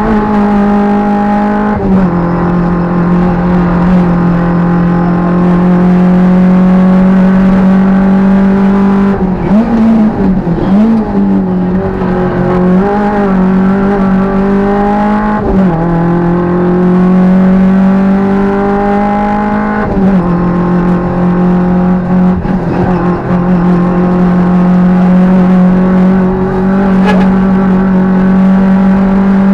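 Peugeot 205 rally car's four-cylinder engine heard from inside the cabin, held at high revs at full throttle. The pitch drops sharply at several gear changes, and about a third of the way through the revs dip and climb again several times.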